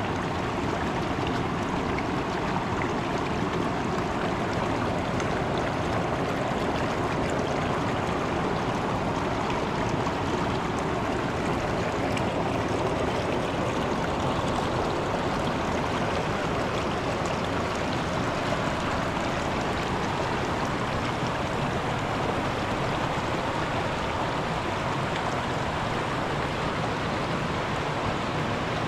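Mountain river water rushing steadily.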